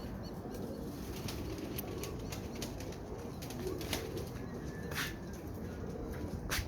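Domestic pigeons flapping their wings, with scattered sharp wing claps; the loudest come about four, five and six and a half seconds in, over a steady low background noise.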